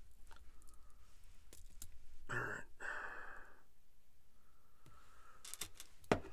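A person sighs, one breath out in two parts about two seconds in. Faint small clicks of stainless steel chainmail rings and pliers come now and then, with a few sharper clinks near the end.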